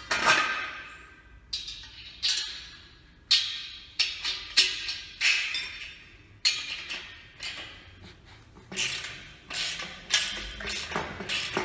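Irregular metal clinks and knocks with short ringing, from a hand tool, bolt and washer worked against a steel sawmill rail and its bolt-on steel bracket while the bracket is tightened on.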